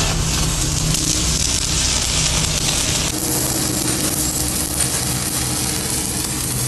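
Electric arc welding on a steel truck axle housing: the arc gives a steady sizzling hiss as a weld bead is laid along the crack, a little lighter about three seconds in.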